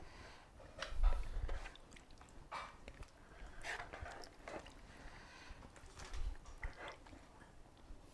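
Hands moving wet chunks of chile-marinated venison into a foil-lined baking tray: irregular squishes and soft handling sounds, with a dull thump about a second in.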